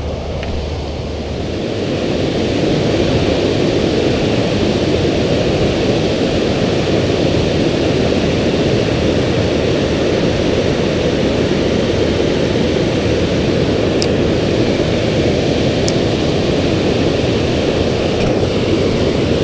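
Steady rushing of water pouring over a river spillway, growing a little louder over the first couple of seconds.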